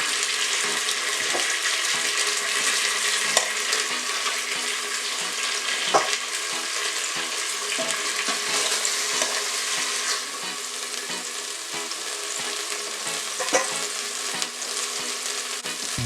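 Red snapper frying in a little olive oil in an Instant Pot on the sauté setting: a steady sizzle, with a few sharp clicks, the loudest about six seconds in.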